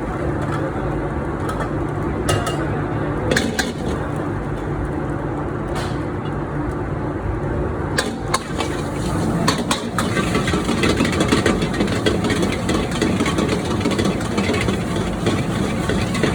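Stir-frying in a pan on a high flame: a steady rumble with sharp clicks of a spatula against the pan, turning busier and more crackling from about ten seconds in.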